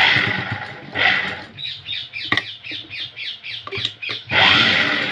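Sewing machine stitching along the edge of a blouse neck binding in short runs, with a quick rhythm of needle strokes between louder spells of running.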